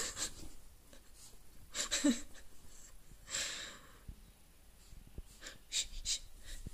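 Italian greyhound puppy giving a few short snorts and breaths, spaced out over several seconds, while she wriggles and rubs herself on her back in a cushioned dog bed, with soft rustling of the bed fabric.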